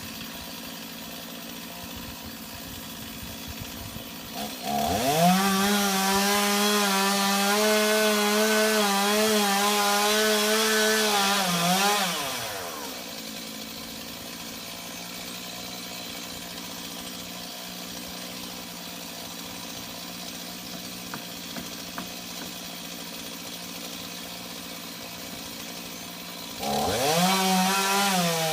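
Chainsaw idling, revved up to full throttle about five seconds in and held for some seven seconds, then dropping back to idle and revving up again near the end.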